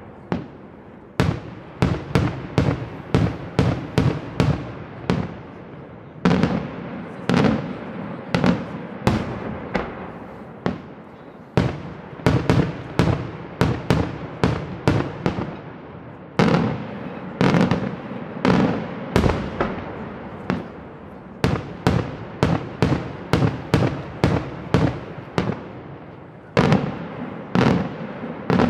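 Daytime fireworks display: a long, rapid barrage of loud shell bursts, several bangs a second, each trailing off briefly, with short lulls every few seconds.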